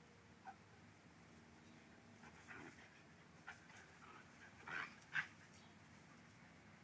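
A boxer and a husky playing, making a few short, faint vocal sounds, the loudest two close together about five seconds in.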